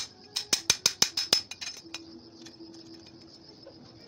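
Claw hammer striking a steel masonry trowel, metal on metal: a quick run of about ten sharp blows in the first two seconds, then the hammering stops. A steady high insect chirring runs behind it.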